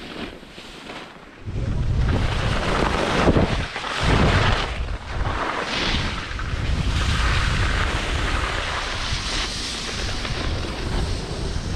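Wind buffeting an action camera's microphone during a fast downhill ski run: a heavy low rumble that comes in about a second and a half in and surges a few times, over the hiss of skis sliding on groomed snow.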